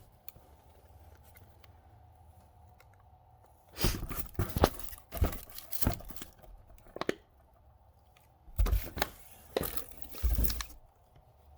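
Firework fountains being unpacked and handled: several bouts of crinkling and tearing packaging with sharp knocks, starting about four seconds in after a quiet spell.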